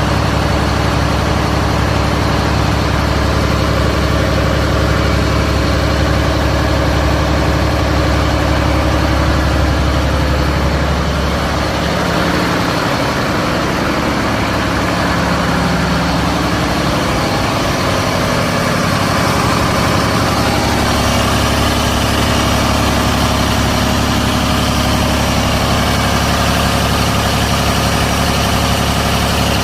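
Volvo truck diesel engine idling steadily.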